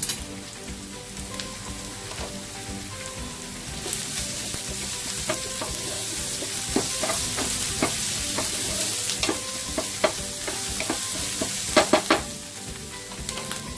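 Onions, ginger, garlic, curry leaves and fennel seeds sizzling in hot vegetable oil in a pan, with a spatula stirring and clicking against the pan. The sizzle gets louder about four seconds in, and a few sharper knocks come near the end.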